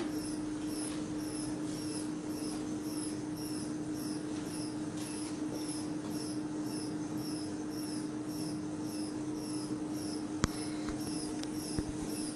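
Universal testing machine loading a carbon-textile-reinforced geopolymer panel in four-point bending: a steady hum with a high chirp repeating about two and a half times a second, and a single sharp crack about ten seconds in.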